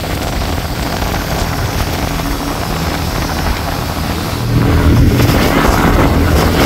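Fishing boat's inboard diesel engine, an Isuzu 6BG1 inline-six, running hard under race load, with a steady low drone and rushing air and water noise over it. The sound grows louder about four and a half seconds in.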